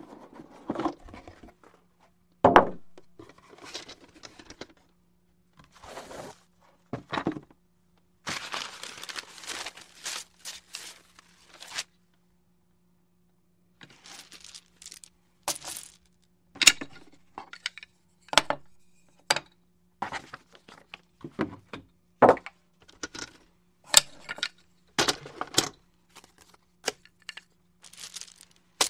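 A board game being opened and handled: scattered knocks of the cardboard box, a few seconds of rustling and crinkling about eight seconds in, then a run of sharp clicks and knocks as pieces are handled and set down.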